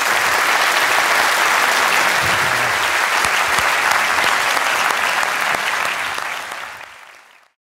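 Large audience applauding in a hall, a dense steady clapping that fades out near the end.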